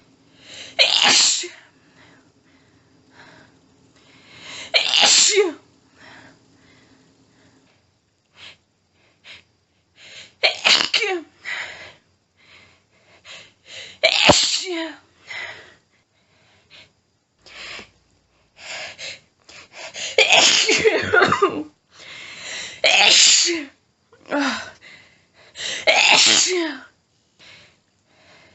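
A woman's sneezing fit: about seven strong, forceful sneezes a few seconds apart, each ending in a falling voiced cry, with quick panting breaths between them.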